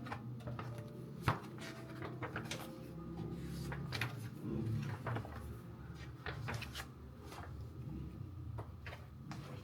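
Irregular clicks, knocks and light clatter of household objects being handled, as of drawers or cupboards and utensils, with one sharper knock about a second in.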